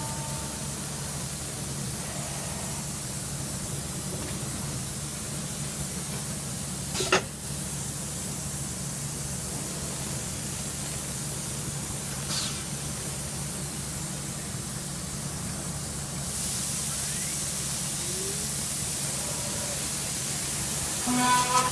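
CNC milling machine running, a steady hiss over a low hum, with a sharp click about seven seconds in and a fainter one a few seconds later. The hiss grows louder about sixteen seconds in, and a few short tones sound near the end.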